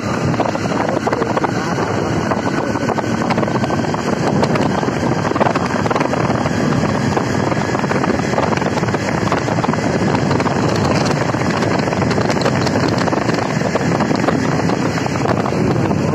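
Steady wind rush on the microphone of a moving motorcycle, with the motorcycle's engine running beneath it.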